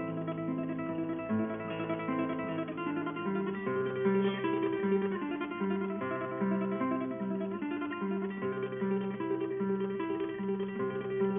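Background music: plucked guitar playing a melody over a repeating bass figure.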